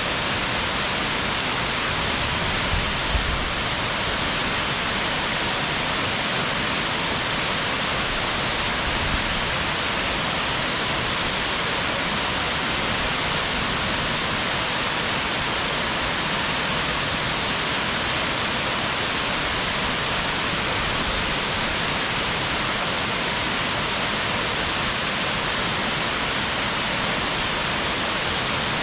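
Waterfall: a steady, dense rush of falling water, with a few brief low thumps in the first ten seconds.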